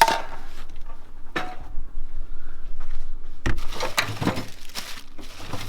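Loose car parts being rummaged through and handled in a box of spares: irregular clinks and knocks, with the busiest, loudest clatter about three and a half to four seconds in.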